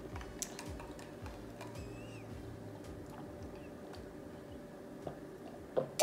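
Quiet eating and drinking sounds: faint clicks and mouth noises as a child chews and sips from a ceramic mug, with a sharper click near the end, over a faint steady hum.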